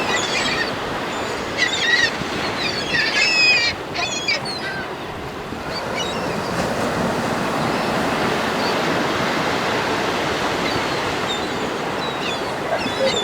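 Surf washing onto the beach as a steady rush, with a flock of birds calling over it for the first few seconds and again faintly near the end.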